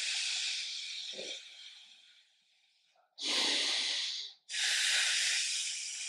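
A man's loud, hissing breaths, paced with an abdominal exercise: a long breath that fades over the first couple of seconds, a short one about three seconds in, and another long one starting about four and a half seconds in.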